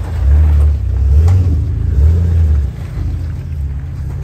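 Jeep YJ's 4.0-litre straight-six revving in short bursts under load, rising and falling about three times, as the Jeep crawls up over boulders.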